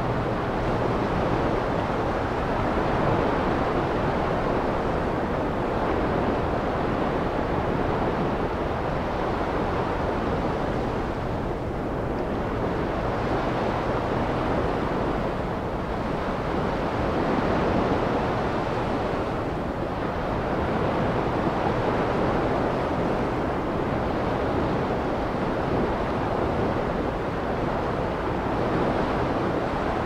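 Ocean surf breaking and washing up the beach: a continuous rushing that swells and ebbs every few seconds as each wave comes in.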